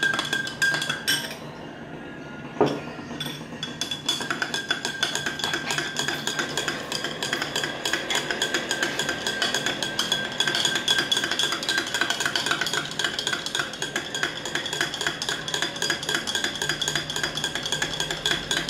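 Metal spoon stirring milk in a drinking glass, clinking rapidly against the sides so that the glass rings. The stirring pauses for a couple of seconds near the start, broken by a single knock, then resumes and keeps going.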